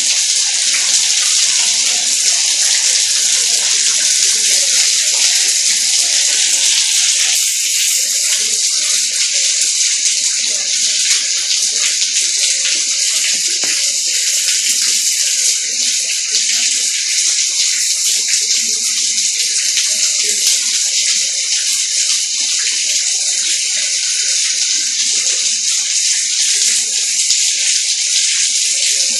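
Heavy thunderstorm rain pouring down steadily, a dense, even hiss of falling drops.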